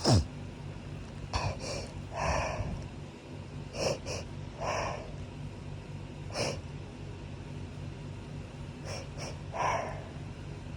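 A loud sneeze right at the start, its voiced end falling in pitch, then short sharp sniffs and breaths in little clusters every second or two: hayfever sniffling between sneezes.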